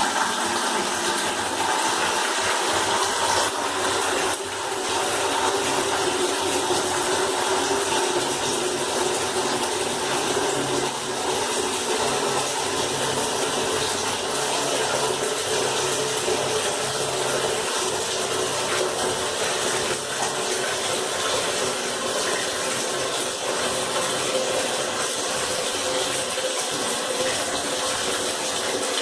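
Water running steadily from a tap, an unbroken rushing stream.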